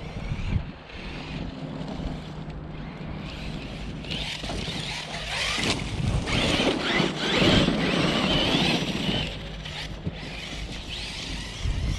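A 6S RC car with a Hobbywing Max6 1650kv brushless motor driving on dirt, louder and hissier about four to nine seconds in, with wind noise on the microphone throughout.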